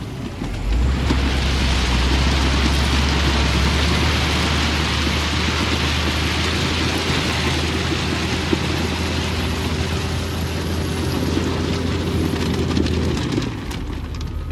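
Heavy diesel engine running hard under a steady rain-like hiss of crushed stone sliding and spreading. Both come up about a second in and fall away near the end.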